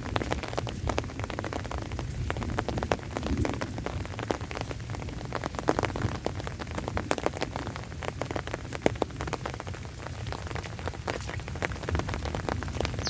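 Rain falling steadily, with many individual drops striking close by: dense, irregular taps over a constant hiss.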